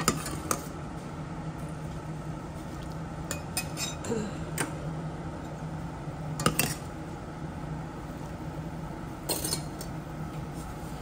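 Kitchen utensils clinking against bowls and a pot: a handful of separate sharp clinks and clatters a few seconds apart, over a steady low hum.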